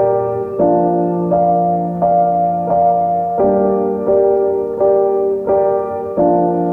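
Background music: piano or electric-piano chords struck about every 0.7 s in a steady pattern.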